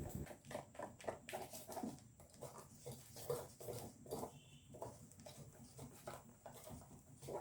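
Cake batter being beaten by hand in a bowl: faint, irregular strokes of the mixing utensil through the thick batter, a few a second.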